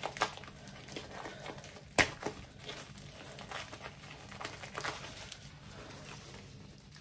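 White plastic mailer bag crinkling and crackling as its glued end flap is peeled open by hand, with one sharper snap about two seconds in. The adhesive seal is weak and gives way easily.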